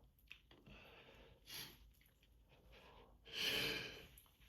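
A person breathing during an allergy sneezing fit: a faint breath about a second and a half in, then a longer, louder breath about three seconds in, as the next sneeze builds.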